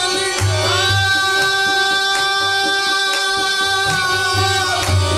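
Qawwali music: a singer slides up into one long held note, sustained for about four seconds and falling away near the end, over a steady backing with repeated hand-drum strokes.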